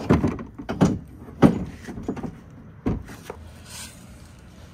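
Five or six irregular clunks and knocks of metal tools and parts being handled, the loudest about a second and a half in, during work on a UTV's bed pivot hinge.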